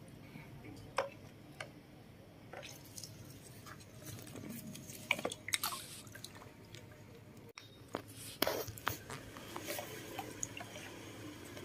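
Small splashes and drips of water in a plastic basin as a baby monkey paddles and moves about in it, scattered and irregular, with the sharpest splashes about five and eight and a half seconds in.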